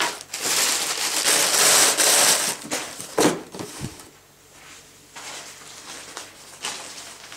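Loud rustling and scraping of packaging as an empty cardboard shoe box is handled and closed, with a sharp knock a little over three seconds in as the lid goes on, then a few soft rustles.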